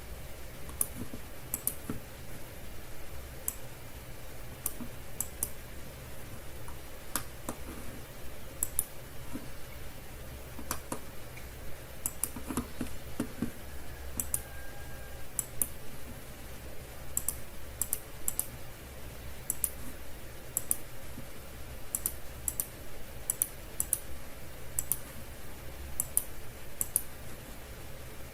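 Irregular clicking of a computer mouse and keyboard, single sharp clicks scattered unevenly, over a steady low hum.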